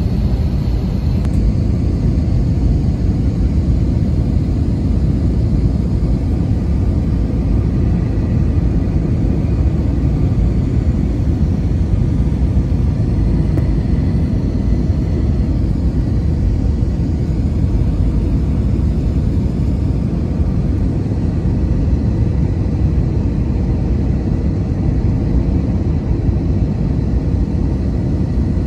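Jet airliner cabin noise heard from a window seat near the wing: the engines and airflow make a steady, loud, low rumble, with the plane low over the ground on its descent.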